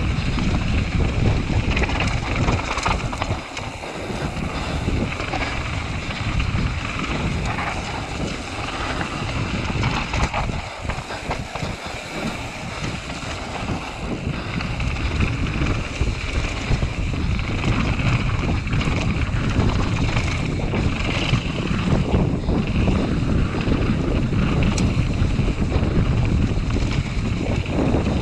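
Wind rushing over the microphone of a mountain bike in motion, mixed with the clatter and knocks of tyres and frame over rough dirt trail. It runs at a steady rush, easing a little a few seconds in and again near the middle.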